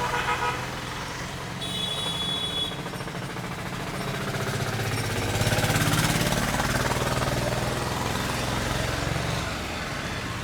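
Street traffic: a motor vehicle's engine rumbles close by, growing louder a few seconds in and easing off toward the end. A brief high tone, like a horn or bell, sounds about two seconds in.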